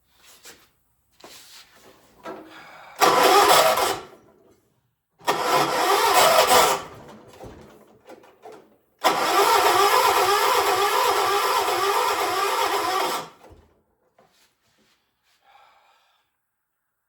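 A 1976 John Deere 300 garden tractor's electric starter cranking the engine in three tries, about 1 s, 1.5 s and 4 s long, the engine turning over in a pulsing rhythm without catching: a hard start.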